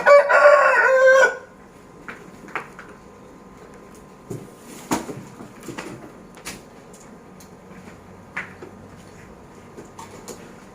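Rooster crowing once, a loud call about a second and a half long that ends on a falling note. Scattered faint clicks and knocks follow.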